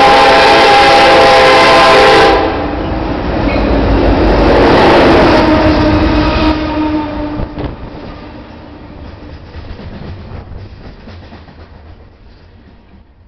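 Union Pacific SD70ACe diesel-electric locomotive sounding a long, very loud horn blast that stops about two seconds in, then rumbling past close by. Its string of coal cars follows, wheels clicking rhythmically over the rail joints and growing quieter.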